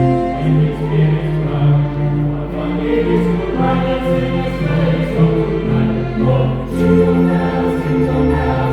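Church choir singing a Christmas carol in several parts, with long held notes.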